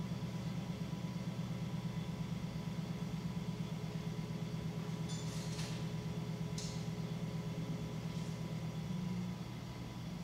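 Electric potter's wheel running with a steady low hum while a tall clay jar is thrown on it. A few brief faint hisses come around the middle.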